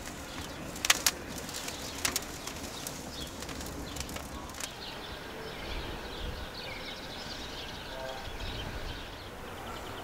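Outdoor ambience with small birds chirping faintly. A few sharp clicks come about a second in, at about two seconds and at about four and a half seconds.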